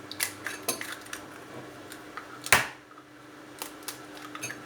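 Kitchen utensils clinking and knocking against a bowl or dish in a few irregular sharp strikes, the loudest about two and a half seconds in.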